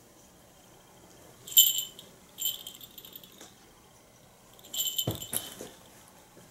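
A small jingle bell jingling in three short bursts as a cat leaps and bats at a dangling toy. The first burst is the loudest, and there is a thump about five seconds in.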